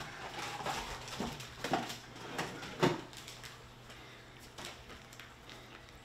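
A few light knocks and clicks in the first three seconds, over a faint steady low hum.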